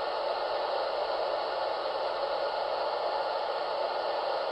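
Steady hiss from the MTH R26 model subway car's onboard sound system as the car stands still.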